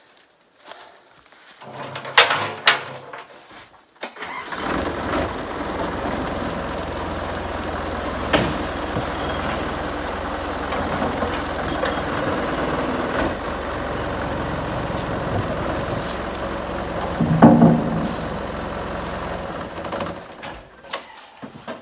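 Komatsu backhoe loader's diesel engine starting about four seconds in and then running steadily. It gives one short louder surge a few seconds before it stops, near the end, as the loader lifts the tractor tire in its bucket.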